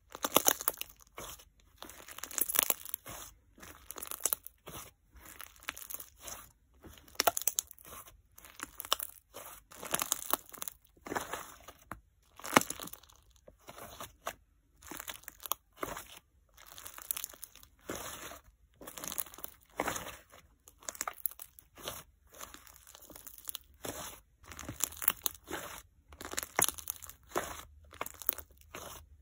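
Hands kneading and pressing a soft, airy clay slime (clear slime mixed with clay), each squeeze giving a short noisy squish, about one a second throughout.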